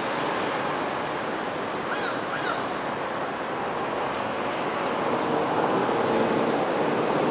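Steady hiss of road traffic, with two short bird calls about two seconds in and a few faint high chirps a little later. In the last couple of seconds a vehicle's engine hum grows louder as it approaches.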